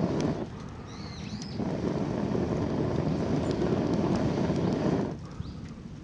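Wind buffeting the microphone in two long gusts, with a short lull about a second in. A few small bird chirps come through around the lull and again near the end.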